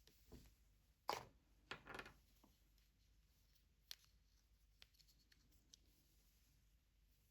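Faint handling noises: a few brief rubs and scrapes in the first two seconds, then three light clicks a second or so apart, typical of hands handling earbuds, their case and packaging.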